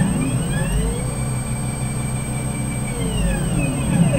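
Stepper motors of a CNC gantry whining through one move: the pitch rises as the gantry speeds up, holds steady, then falls as it slows, and another move starts near the end.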